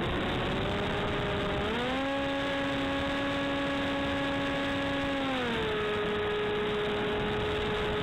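Hawk Sky RC plane in flight: wind rushing over its onboard camera's microphone, under the whine of its electric motor and propeller. The whine rises in pitch about two seconds in as the throttle opens, holds steady, then drops back a little past five seconds.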